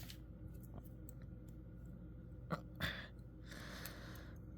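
Two faint, sharp clicks in quick succession about two and a half seconds in, then a soft hiss, from a small multi-tool pocketknife being handled as one of its tools is folded or opened.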